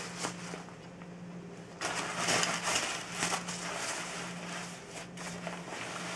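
Large shower cap rustling and crinkling as it is pulled on over the head and adjusted by hand, in uneven bursts that start suddenly about two seconds in.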